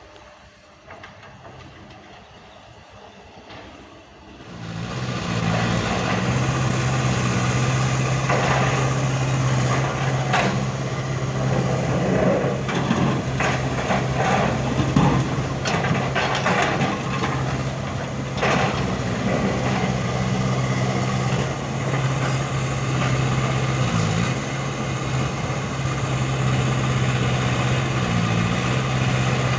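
Excavator's diesel engine running steadily, much louder from about four seconds in, with scattered knocks and scrapes in the middle stretch.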